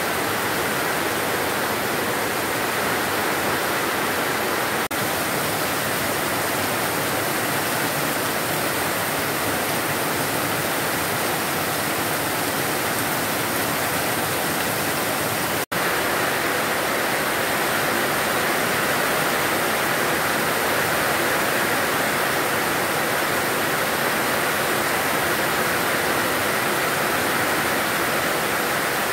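Heavy tropical downpour: a steady, dense hiss of rain falling on foliage, roofs and waterlogged ground. It cuts out for an instant about halfway through.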